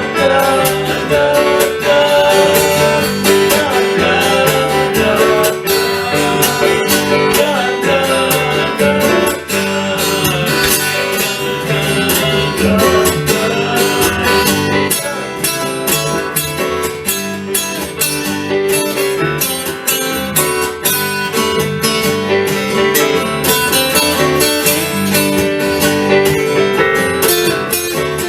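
Acoustic guitar playing an instrumental passage in a country style, strummed steadily with picked notes.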